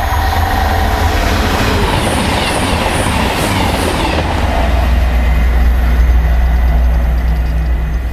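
Class 221 Voyager diesel-electric multiple unit passing at speed: a loud rush of wheel and engine noise whose pitch falls as it goes by, then a steady low rumble as it draws away.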